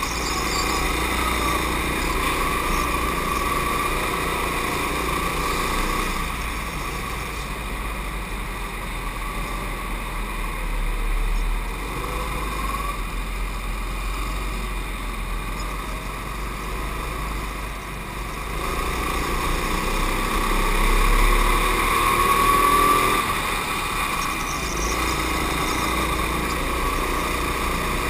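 Racing go-kart heard from on board at speed, its pitch and loudness rising and falling as it accelerates out of corners and backs off into them, loudest about three-quarters of the way through.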